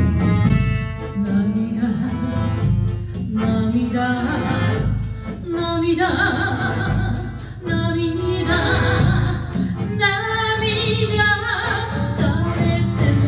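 Live chindon-band enka: a woman sings into a microphone over accordion, a chindon drum set and a large bass drum keeping a steady beat, with a trumpet.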